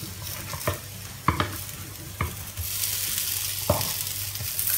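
Oat-batter patties frying in hot rapeseed oil in a pan, sizzling steadily, louder from about three seconds in as a fresh dollop of batter goes in. Metal spoons clink sharply about four times as batter is scraped off into the pan.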